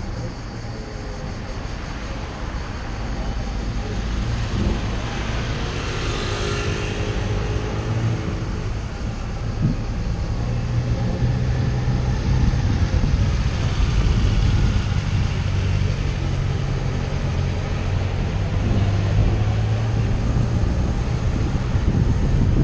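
Car driving along a city street, heard from inside the cabin: a steady low engine and road rumble that grows gradually louder as it goes, with a brief higher humming tone about six seconds in.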